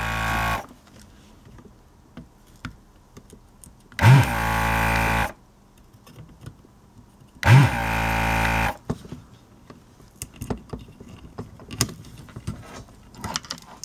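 Electric vacuum desoldering gun's pump motor running in short bursts as it sucks solder from a capacitor's joints: each time it spins up with a rising whine and runs steadily for about a second, once ending just after the start, then again about four and about seven and a half seconds in. Light clicks and taps of the tool on the circuit board come between the runs.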